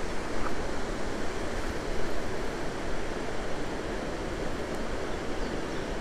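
Steady rushing of Aira Force waterfall and Aira Beck in the gorge below: an even wash of falling water with no separate events.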